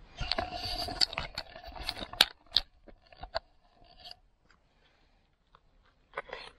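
Close rustling and clicking of the camera being handled and moved, then a few light knife taps and a short scrape on a bamboo cutting board as a cod pudding is sliced.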